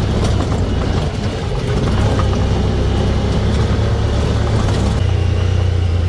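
ATV engine running at a steady speed, a low, even drone.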